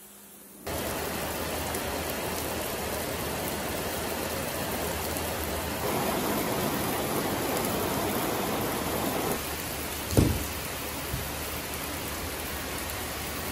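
Heavy rain pouring down on pavement, a steady hiss that starts just under a second in and drops a little about nine seconds in. A short, low thump comes about ten seconds in.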